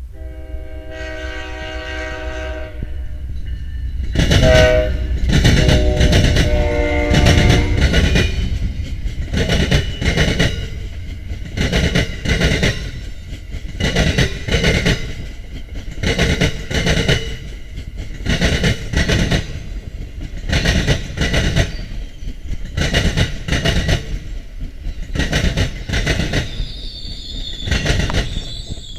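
Amtrak passenger train sounding its locomotive horn twice, a short blast then a longer one that drops in pitch as the locomotive passes close by. Then comes the steady rumble and rhythmic clickety-clack of the passenger cars' wheels crossing rail joints as the train rolls by.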